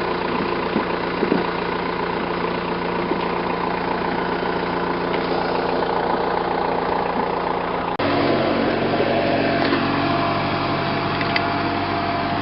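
Farm tractor engine running steadily. About eight seconds in, the sound changes abruptly to a lower engine hum.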